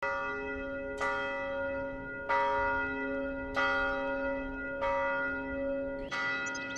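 A church bell tolling, struck five times about every 1.3 seconds, each stroke ringing on into the next.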